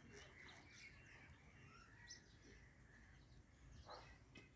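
Sparrows chirping faintly: short, scattered chirps over low background noise.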